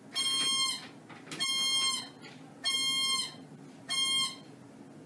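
ProNox nitrous oxide blender's supply alarm beeping: four pitched beeps, about one every 1.2 s, each dipping slightly in pitch at its end, which stop a little over four seconds in. The alarm signals that the nitrous oxide supply has been lost or is running low.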